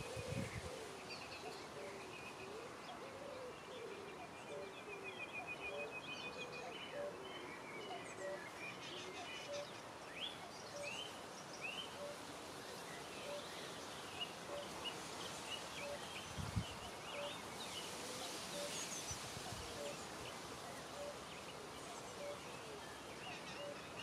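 Quiet riverside ambience at dusk: birds chirping and trilling over a steady faint background hiss, with a soft low note repeated at an even pace, about once or twice a second, through most of it. A couple of brief low thuds come past two-thirds of the way in.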